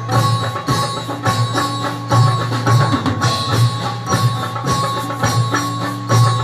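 Indian-style instrumental ensemble playing: sitars and keyboard over a steady beat of tabla and dholak hand drums, with a sustained low note underneath.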